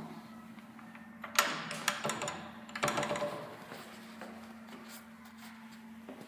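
Three short bursts of rustling and clattering handling noise, about one, two and three seconds in, over a steady low hum.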